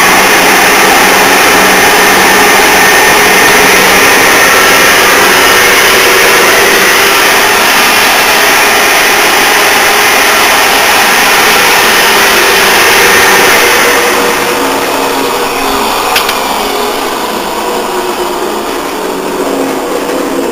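Turret lathe running loudly and steadily, driven by a Brook 2 hp single-phase electric motor, its spindle and gearbox turning. It is a bit noisy, but there are no clunks or grinds from bad gears. The sound grows quieter over the last few seconds, with a single click partway through.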